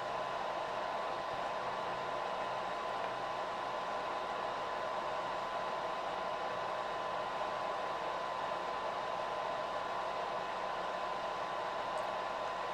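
Steady whirring hiss of a 1970s disco effects projector's cooling fan and motor, with a constant whine running through it.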